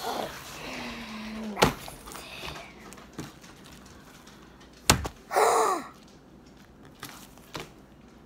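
Homemade glitter slime being handled on a wooden table: two sharp thumps as it is slapped down, one about a second and a half in and one near five seconds, with quieter handling noise between.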